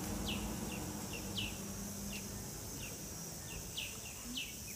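Short, high chirps, each falling in pitch, repeated irregularly about two a second, like a small bird calling, over a steady outdoor background hum.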